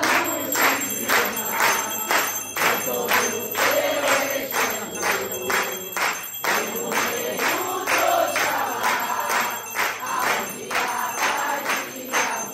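A group clapping hands together in a steady rhythm, about two claps a second, with voices singing along.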